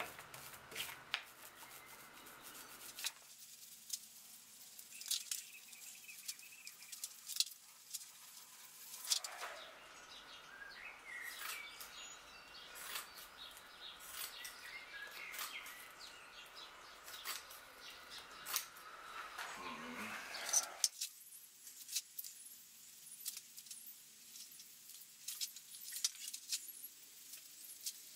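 Fibreglass cloth being handled and cut with scissors: repeated snips and clicks, with the cloth rustling as it is unrolled and laid over the timber.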